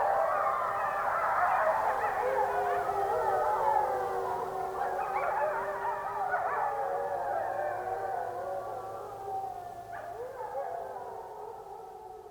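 A pack of grey wolves howling in chorus, many long overlapping howls rising and falling in pitch, fading away over the last few seconds.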